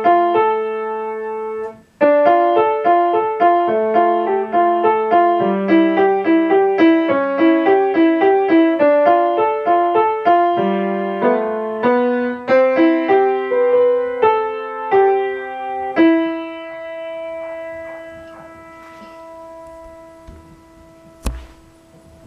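Grand piano being played: a steady run of notes with a brief break about two seconds in, ending on a final chord that rings out and fades over several seconds. A single sharp click sounds near the end.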